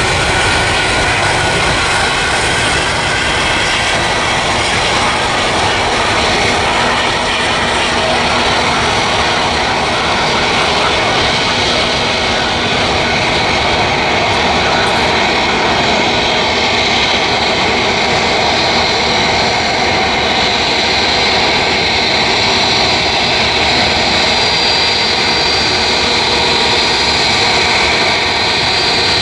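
Twin turbofan jet engines of an Air India Airbus A320-family airliner at takeoff power, a steady loud roar as it rolls down the runway and climbs away. A high whine grows stronger in the second half.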